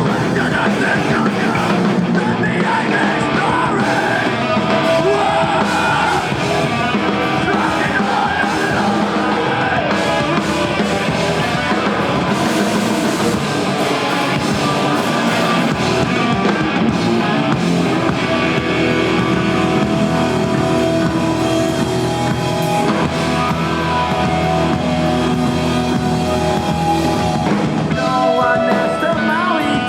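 A rock band playing live and loud, with electric guitar and a singer's vocals over a dense, unbroken wall of sound.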